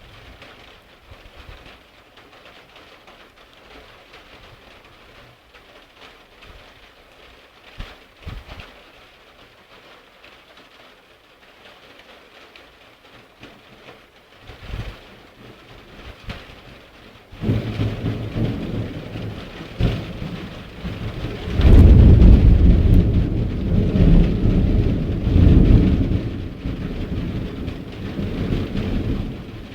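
Steady rain falling through a thunderstorm, then a long peal of thunder. It starts suddenly a little past halfway, rumbles loudest about three-quarters of the way through, and dies away near the end.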